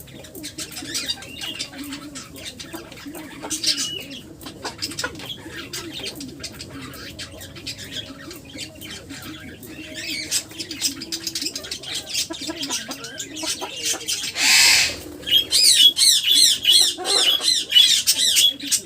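Pet birds chirping and calling, with a harsh squawk about fourteen and a half seconds in and then a run of quick, repeated high calls near the end.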